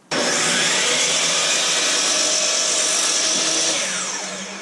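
Electric power saw starting suddenly and running at full speed, trimming about a blade width off a board. Near the end it is switched off and winds down with a falling whine.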